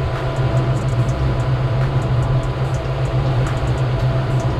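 Twin outboard motors running steadily with the boat under way, a constant low drone with a rush of wind and water over it.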